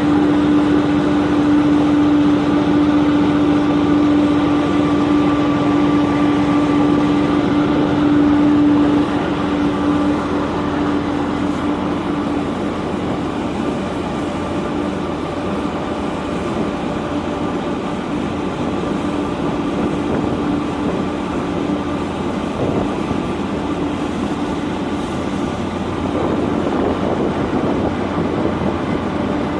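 Steady mechanical drone of a boat's engine running, heard on board, with a strong steady hum that weakens about nine seconds in.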